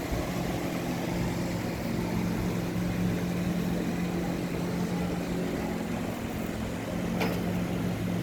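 An engine running steadily with a low, even hum, and a single short click about seven seconds in.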